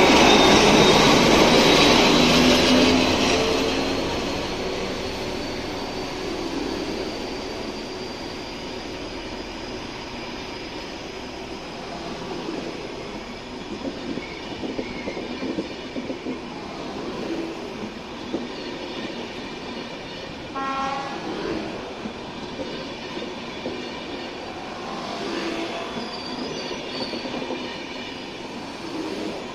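EIC Jantar express train passing on the rails. It is loudest in the first few seconds, with a thin, slowly rising high squeal from the wheels, then settles into a steadier rumble of carriages with clicks over the rail joints and a few brief squeals.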